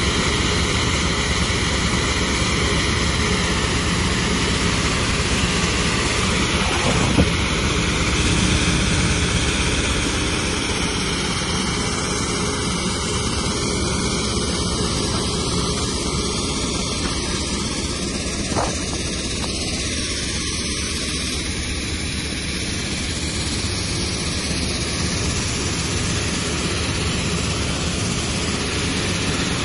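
Steady, loud machinery noise from a sand-making (M-sand) plant at work: a 300 hp vertical shaft impact crusher, vibrating screen and conveyor belts. Two brief knocks stand out, about a quarter of the way in and again roughly two-thirds through.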